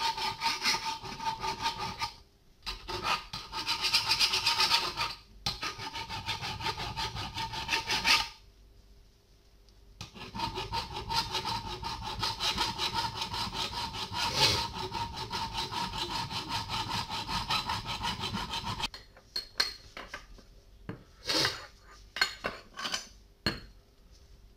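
Hand file rasping on a steel rebar bar clamped in a bench vise, in fast back-and-forth strokes with a few short breaks. About three quarters of the way through the filing stops, and a handful of separate metallic knocks and clicks follow.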